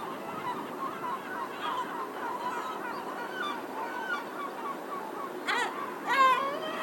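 A flock of gulls calling, many short overlapping calls over a steady hum of distant city traffic, with two loud nearby calls near the end.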